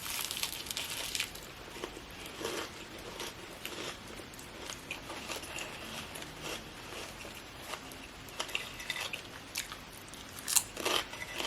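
A person biting and chewing crunchy food: a run of small, irregular crunches and mouth clicks, with a few louder crunches near the end.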